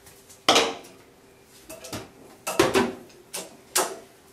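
Several sharp clattering knocks of ice and a baking tray as the meltwater and ice are cleared out of a defrosting freezer compartment, the loudest about half a second in and a cluster a couple of seconds later.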